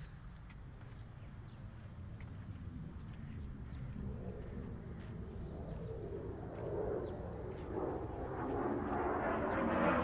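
A distant engine approaching: faint at first, it grows steadily louder from about four seconds in, over a low steady rumble.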